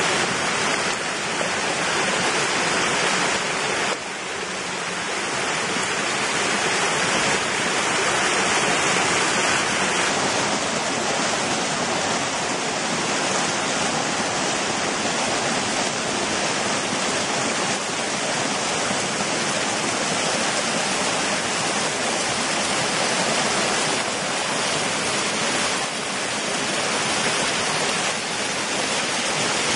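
Small mountain-stream waterfalls pouring over rock: a steady, full rush of falling water. Its tone shifts slightly about four and ten seconds in.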